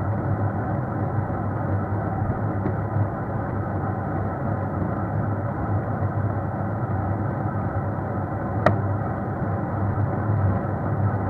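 Steady running noise of a vehicle travelling along an asphalt road, with a low steady hum throughout. A single sharp click about eight and a half seconds in.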